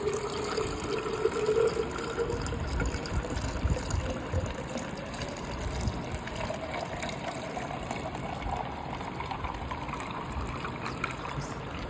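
Juice poured in a steady stream into a glass jug over ice cubes, splashing and gurgling, its pitch slowly rising as the jug fills.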